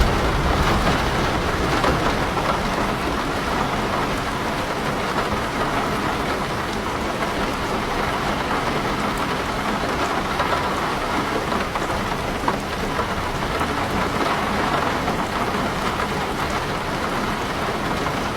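Heavy rain falling steadily on a house and on the leaves of a garden.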